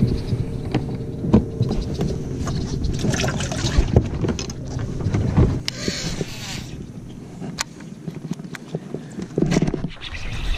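A bass boat's motor hums low and steady, then fades out a little past halfway. Wind buffets the microphone, and sharp knocks and clicks of handling on the boat's deck come through it.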